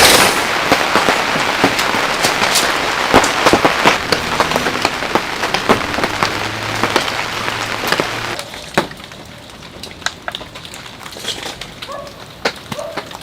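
Heavy rain falling, with many loud individual drops striking close by. About eight seconds in, the downpour falls away sharply to lighter, scattered drips.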